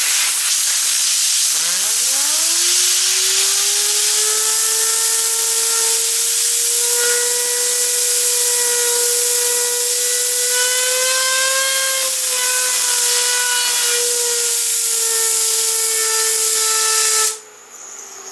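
Compressed air from an air compressor blow gun hissing hard at a silver three-sided fidget spinner, which spins up with a rising hum that settles into a steady high whine. The air cuts off about a second before the end, leaving the spinner whirring on its own.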